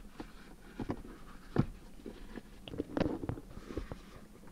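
Plastic surround of a leather gear-lever gaiter being pressed and clipped into a BMW E39 M5's centre console trim: several sharp plastic clicks and knocks, the loudest a little over a second and a half in, with the rustle of the gaiter being handled between them.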